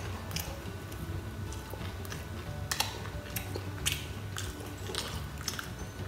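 Close-up sounds of a person chewing and biting a rice-paper roll of boiled pork, with irregular crisp clicks and crunches about once a second.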